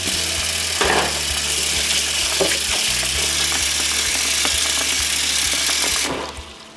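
Tap water running hard onto strawberries in a stainless steel bowl while a hand swishes them to rinse off the dirt: a steady splashing hiss that fades out near the end.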